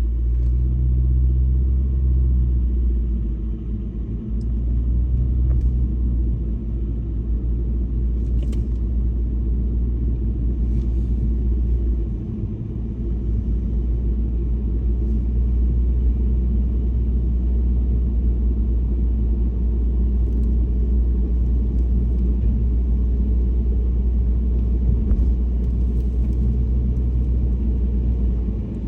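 Car driving on snowy streets, making a steady, deep rumble of engine and tyre noise with a few faint ticks. It eases briefly about twelve seconds in.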